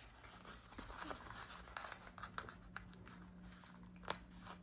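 Faint rustling and small ticks of paper planner stickers being peeled off a sticker sheet and pressed onto a planner page, with one sharp click about four seconds in.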